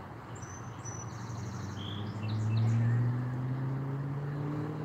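Small bird chirping in a few quick twittering phrases during the first half, over a steady outdoor background noise. Underneath, a motor vehicle's engine hum slowly rises in pitch and is loudest about two and a half seconds in.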